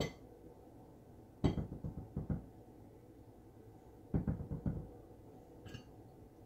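Two short clusters of dull knocks and taps, about a second and a half in and again about four seconds in, as a silicone spatula scrapes melted butter out of a frying pan held against a glass bowl.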